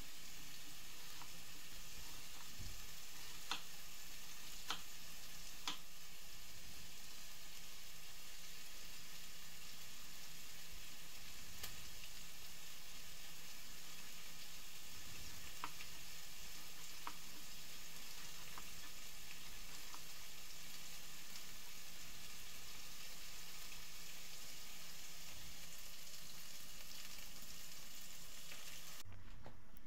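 A few faint, scattered taps of a knife blade against a plastic cutting board as an onion is diced, over a steady background hiss.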